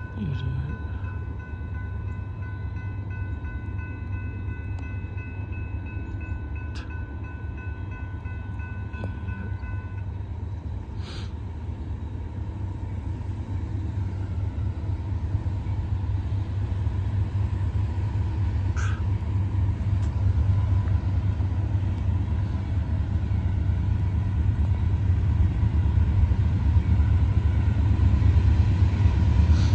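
Low rumble of an approaching Norfolk Southern train, growing gradually louder.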